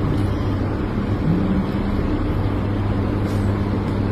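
A steady low hum under a rushing noise, with a short low rising tone about a second in.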